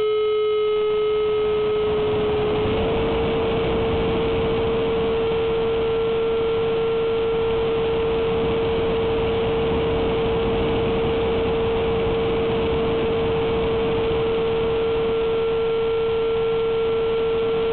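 Electric ducted fan of a Durafly Vampire RC jet heard from a camera on board in flight: a steady whine over the rush of air through the fan. The pitch steps up slightly about three seconds in.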